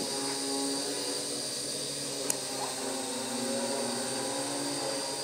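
WLtoys V212 micro quadcopter's four small motors and propellers buzzing steadily in flight, with a brief sharp click a little over two seconds in.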